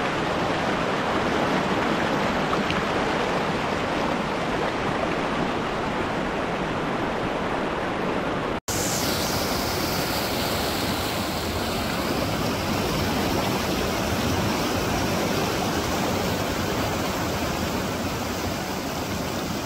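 Fast mountain creek rushing over rocks and a small cascade: a steady, even rush of water, broken by a momentary dropout a little past the middle.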